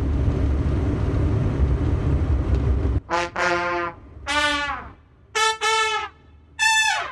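A low, steady car-engine rumble for about three seconds, then a run of five or six short, brassy horn blasts, the last few sliding down in pitch as they end.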